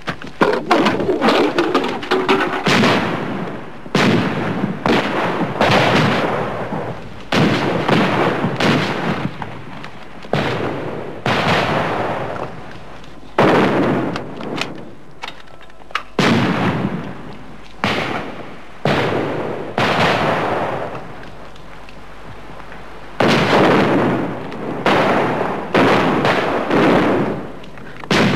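Rifle gunfire in a gunfight: a long run of single shots at irregular intervals, roughly one every second or two, each with an echoing tail. There is a short lull about two-thirds of the way through before the shooting picks up again.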